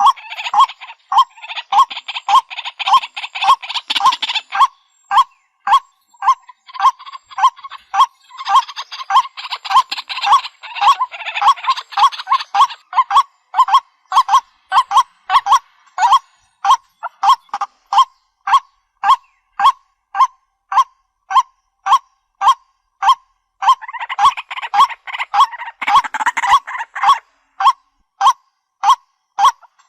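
White-breasted waterhen calling: a loud, monotonous call repeated about twice a second. In some stretches it is joined by harsher, rasping croaks.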